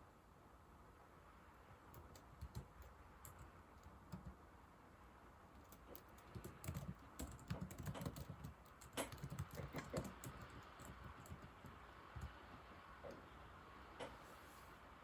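Typing on an old laptop keyboard: soft key clicks, a few scattered at first, then a quick, dense run of keystrokes in the middle, thinning to a few single taps near the end.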